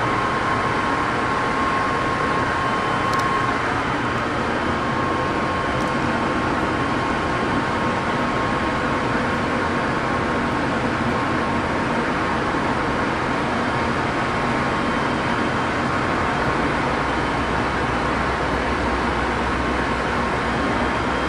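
Steady hum and whir of an Amtrak Pacific Surfliner bilevel passenger train standing at the platform, its air-conditioning and onboard equipment running, with a faint steady whine in the first few seconds. A low rumble grows in about three-quarters of the way through.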